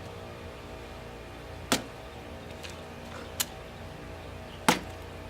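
A metal pole stabbed down into a watermelon: three sharp impacts, the second one lighter.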